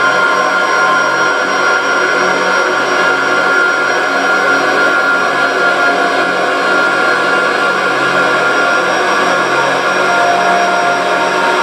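Drone music played live: a loud, steady wall of hiss with several held tones layered through it and a low hum underneath. A further tone comes in faintly about ten seconds in.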